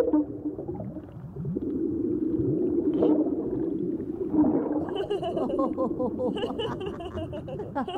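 Cartoon underwater sound effects: a steady bubbly gurgling, joined from about halfway by a warbling, burbling stretch of gurgled laughter from two characters in diving gear.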